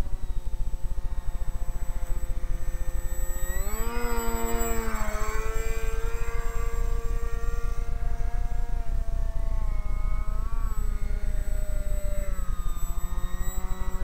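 RC flying boat's propeller motor heard from on board in flight, a steady pitched whine. Its pitch rises sharply about four seconds in as the throttle opens, eases back a moment later, and shifts up and down again near the end. A rough low rumble runs underneath it.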